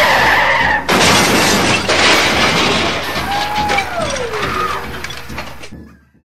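Fireworks bursting and crackling, a dense noisy rattle of bangs that fades out and stops about six seconds in.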